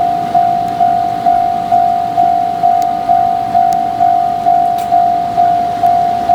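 Japanese level-crossing electronic warning bell ringing, one steady tone struck evenly about twice a second, each stroke sharp then fading: the crossing is active and closed to road traffic.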